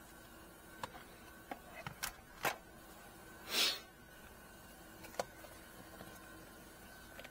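BMW E90 plastic interior trim pieces being handled and worked loose: scattered light clicks and knocks, with one louder short scraping swish about three and a half seconds in.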